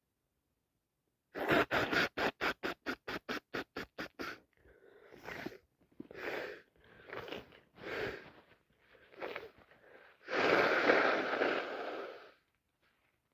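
A person with a heavily congested nose from a bad head cold sniffing: a fast run of short sniffs starting about a second in, then slower sniffs about once a second. Near the end comes one long, loud nose blow lasting about two seconds.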